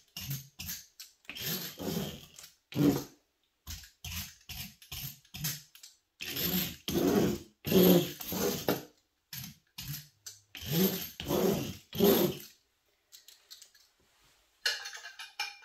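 A thin mark-making tool scratching through wet paint on heavy paper clipped to a wooden easel board, in many short, irregular strokes. The strokes stop a little before the end, followed by a brief, lighter clatter.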